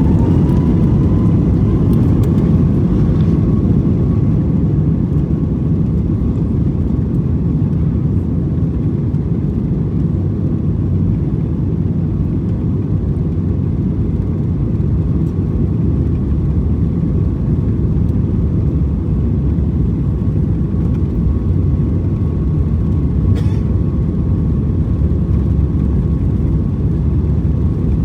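Steady engine and air noise inside the cabin of a Boeing 737 MAX 8, with its CFM LEAP-1B engines' whine rising in pitch over the first two seconds and then holding.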